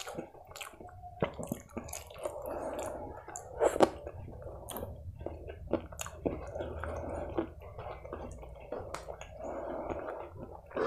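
Close-miked fingers working white rice into chicken curry on a steel plate: wet squishing with many small sticky clicks, and a burst of louder smacks just under four seconds in. Chewing mixes in.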